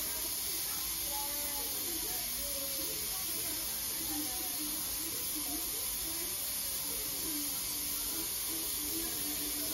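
Steady hiss of room and recording noise, with faint distant voices wavering underneath.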